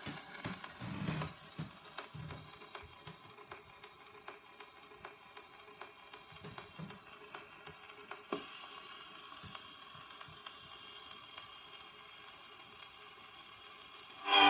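Steel needle of a Decca portable wind-up gramophone running in the lead-in groove of a 78 rpm shellac record: steady surface hiss with frequent crackles and clicks. A few soft thumps in the first couple of seconds and a sharper click about eight seconds in.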